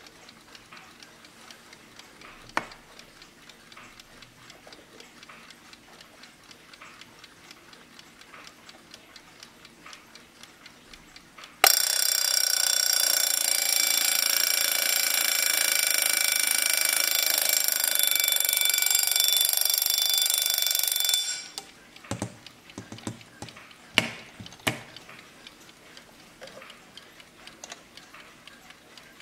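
Freshly serviced vintage Kienzle mechanical alarm clock ticking, then its alarm bell rings loud and unbroken for about ten seconds and cuts off suddenly. A few sharp knocks follow as the clock is handled, and the ticking carries on.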